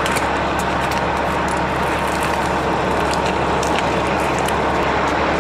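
Steady road and engine noise inside a moving car's cabin, with a few faint ticks.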